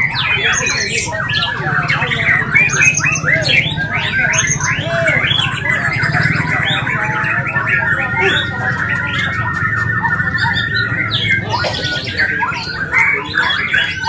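Several caged white-rumped shamas (murai batu) singing at once: a dense mix of rapid whistled notes and chirps, with one long trill held through the middle.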